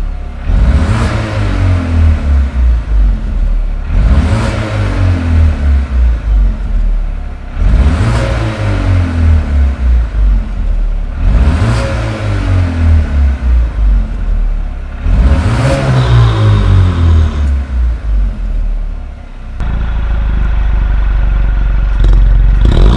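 The 2.0-litre turbocharged four-cylinder of a Mercedes-AMG A35 (W177) is blipped five times through an iPE valved aftermarket exhaust with its valves closed. Each rev climbs quickly, then the revs fall away over a couple of seconds. Near the end the engine settles into a steady, deeper idle drone with the exhaust valves open, and another rev begins right at the end.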